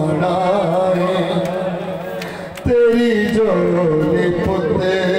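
A man's voice singing a mournful devotional elegy over a steady harmonium drone, a louder new phrase breaking in about two and a half seconds in.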